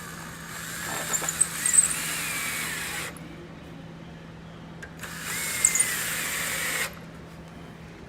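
Power drill driving wood screws into cedar boards in two runs, the first about three seconds long and the second about two seconds a couple of seconds later; the motor whine rises and falls in pitch as each screw goes in.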